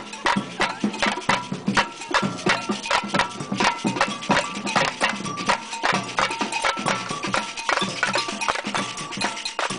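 Batucada samba percussion ensemble playing a fast, steady samba rhythm on drums, with short pitched strokes over the drumming.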